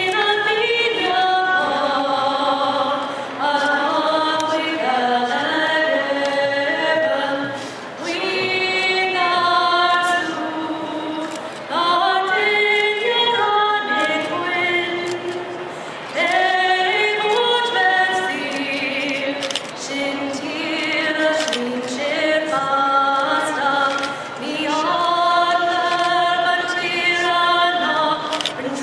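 A national anthem sung without accompaniment, a woman's voice leading, in long held notes.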